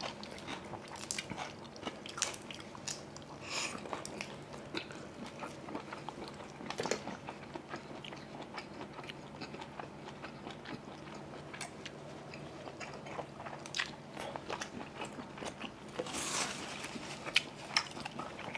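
Close-up eating sounds of steamed seafood: scattered bites, crunches and wet chewing, with a somewhat louder stretch of crunching and rustling near the end.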